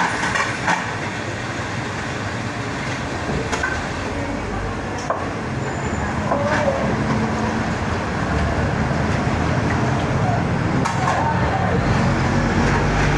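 A road vehicle running, with steady road noise and a low rumble that grows stronger about halfway through, and a few scattered clicks and knocks.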